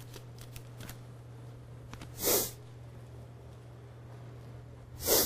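Two short breaths or sniffs close to the microphone, about three seconds apart, over a steady low hum.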